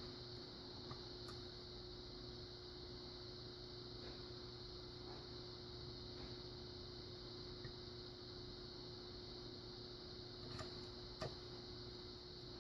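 Faint, scattered ticks of a lock pick working the pins inside a Kenaurd 5-pin pin-in-pin lock under tension, with two sharper clicks near the end, over a steady low hum.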